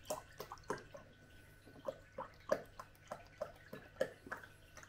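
Milk being poured from a carton into a ceramic coffee mug, glugging in short, irregular gurgles and drips, about two or three a second.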